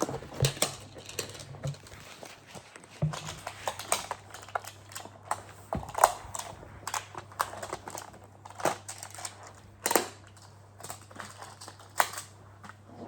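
Plastic magnetic building tiles being handled, clicking and clacking together in scattered, irregular knocks.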